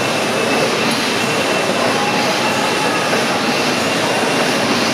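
Victoria side of the Ellenroad horizontal mill steam engine running steadily, its crank, valve gear and rope-grooved flywheel turning, with a faint high whine over the machinery noise.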